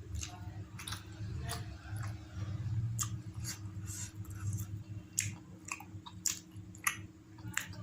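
Close-miked chewing of food, with irregular wet mouth clicks and smacks, over a steady low hum.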